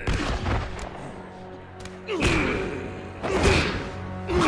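Heavy punch-impact sound effects of an anime fistfight, four hard hits about a second apart, over dramatic background music.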